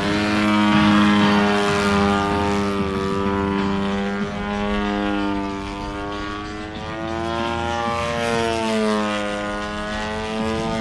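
DA-60 single-cylinder two-stroke gasoline engine and propeller of a large radio-controlled aerobatic Slick plane in flight. Its pitch rises and falls repeatedly as the throttle is worked through 3D manoeuvres.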